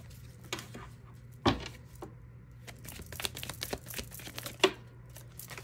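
Tarot cards being handled: the deck shuffled in the hands and a card drawn and laid on the table, with soft rustles, card slides and a few light taps, the sharpest about a second and a half in and near the end.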